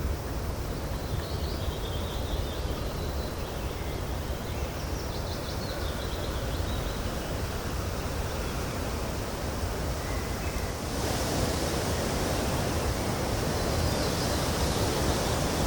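Steady outdoor background noise with a low rumble and a few faint high chirps in the first half; the noise suddenly gets louder about eleven seconds in.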